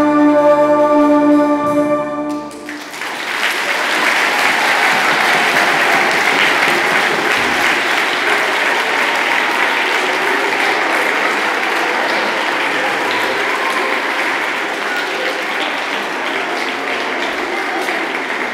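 A school orchestra of strings, guitars and brass holds its final chord, which cuts off about two and a half seconds in. A large audience then applauds steadily.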